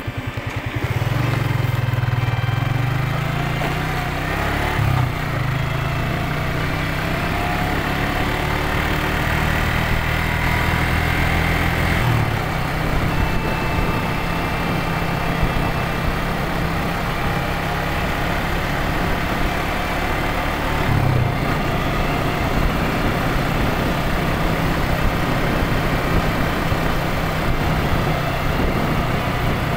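Motorcycle engine running while riding, heard from the rider's seat with road and wind noise. The engine note picks up about a second in and shifts a few more times.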